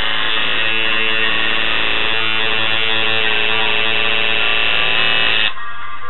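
Electric tattoo machine buzzing steadily as it runs with the needle in the skin, then cutting off suddenly about five and a half seconds in.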